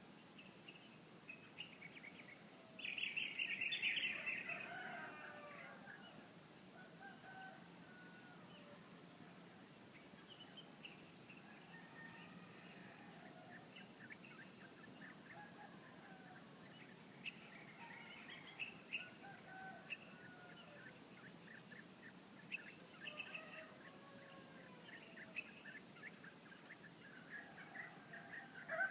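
A rooster crows once, about three seconds in, a loud call lasting about two seconds that falls in pitch at its end, with another crow starting just at the end. Scattered short chirps of other birds and a steady high-pitched drone run underneath.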